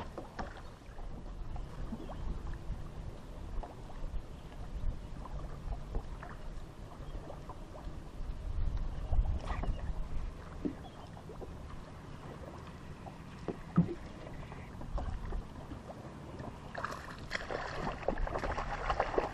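Water lapping against a bass boat's hull, with wind rumbling on the microphone and a few small knocks on the deck; a louder rush of noise lasts about two seconds near the end.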